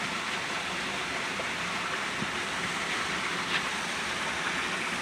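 Steady rushing of flowing water, with a faint click about three and a half seconds in.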